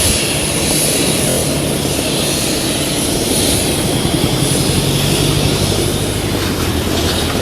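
Airliner engines running steadily, heard inside the passenger cabin as a loud, even rush with a low hum underneath.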